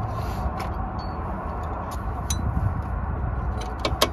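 A steady low rumble throughout, with a quick cluster of sharp clicks near the end from a socket tool being handled against metal around the exhaust oxygen sensor.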